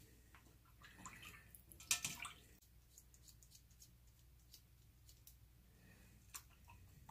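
Mostly near silence, with a few faint scrapes and small water sounds as a cartridge razor is drawn over lathered skin and rinsed. The loudest comes about two seconds in.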